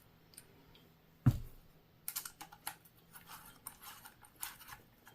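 One knock about a second in, then a run of light, irregular clicks and scrapes: small metal parts of an airgun's rail adapter and handguard being handled and fitted together.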